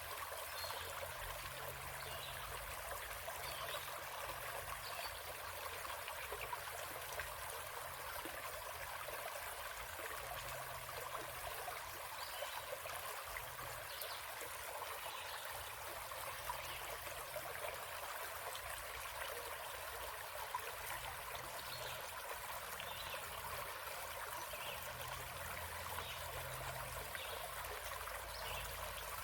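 A stream running with a steady trickle of water.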